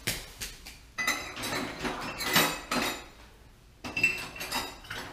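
Kitchen utensils and measuring cups clinking and clattering: a flurry of clinks for a couple of seconds, a short lull, then a few more near the end.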